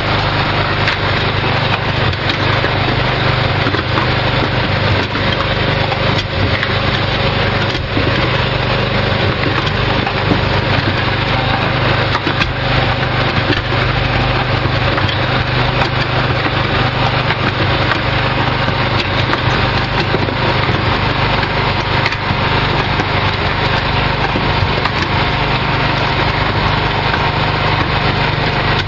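A 7 kVA portable generator's engine running steadily, with many scattered sharp clicks over a dense, even noise.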